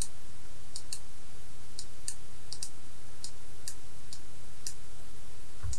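Computer mouse button clicking: about a dozen short, sharp clicks at irregular intervals as a brush is dabbed on in Photoshop, over a steady low hum.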